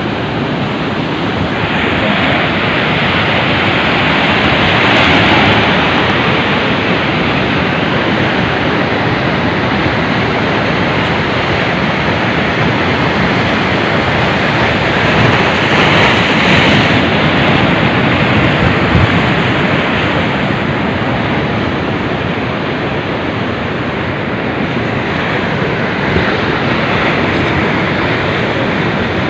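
Sea surf washing against a breakwater: a steady rushing that swells about five seconds in and again around sixteen seconds.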